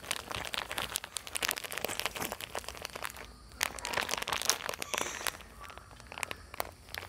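Plastic packet of bone meal crinkling and rustling as it is shaken and squeezed to pour the meal into a pot of soil: a dense run of crackles with a short lull about three seconds in, thinning out near the end.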